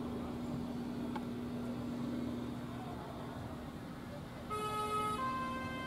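Small diesel shunting locomotive running with a steady engine hum, then a railway horn sounds near the end in two notes, about three-quarters of a second each.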